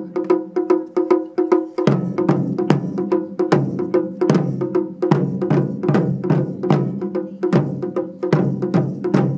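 Taiko ensemble playing nagado-daiko barrel drums with wooden bachi sticks: a fast, driving rhythm of deep drum strokes mixed with sharp wooden clicks of the sticks.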